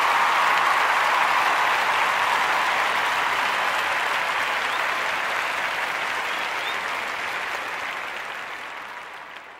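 Audience applause, steady at first and fading out gradually over the last few seconds.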